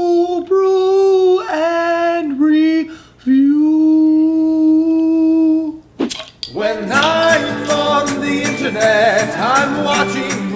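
A man singing long, held high notes without accompaniment. About six seconds in, a sharp click and a busy music jingle with several layered voices take over.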